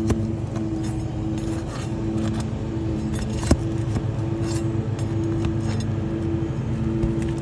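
A steady low motor hum with a low rumble, joined by faint scrapes and clicks and one sharp click about three and a half seconds in.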